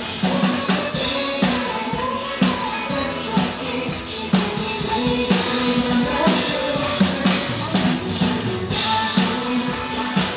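Mandarin pop song with singing, a drum kit keeping a steady beat and a tambourine.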